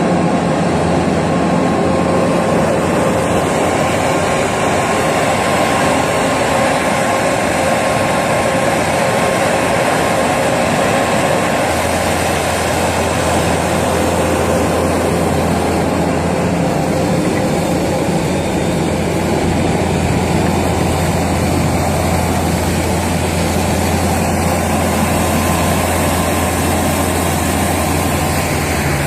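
Skid steer loader's engine running steadily, its low drone growing stronger about twelve seconds in.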